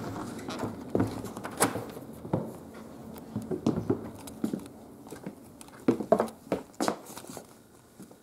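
Irregular knocks, taps and rustles: footsteps and handling noise from a hand-held camera being carried through a house.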